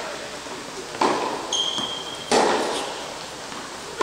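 Tennis ball being struck by a racket and bouncing during a rally on an indoor court, two sharp hits about a second in and just over two seconds in, each echoing in the hall. A short high squeak comes between them.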